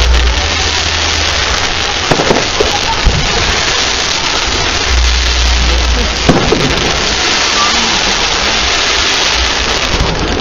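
Aerial fireworks display: shells bursting with sharp bangs, the clearest about two, three and six seconds in, over a dense steady hiss.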